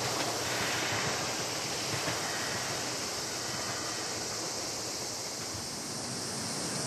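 Steady outdoor background hiss, brightest in the upper register, with the faint sound of a departing electric train dying away in the first seconds.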